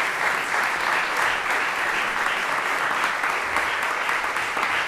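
An audience applauding steadily after the end of a percussion performance.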